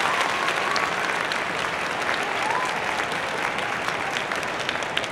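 Crowd applauding steadily, many hands clapping at once.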